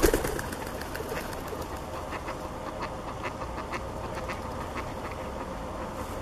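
Mallards quacking, loudest right at the start, then scattered short calls over a steady low background rumble.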